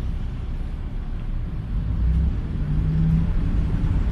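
Cabin road noise from a car driving on a wet road: a steady low rumble of engine and tyres on wet pavement. It grows a little louder about two seconds in, with a low engine hum.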